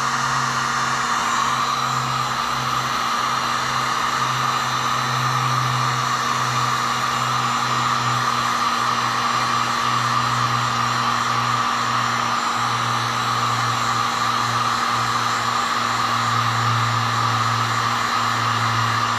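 Electric heat gun running steadily, a constant fan-and-motor whir with a low hum, as it shrinks heat-shrink tubing over wire connections.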